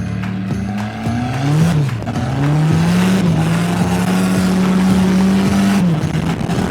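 Volvo 940's engine revving hard while sliding on dirt: the pitch climbs, dips briefly, climbs again and holds high for about three seconds, then falls away near the end, over a steady hiss of tyres on loose dirt.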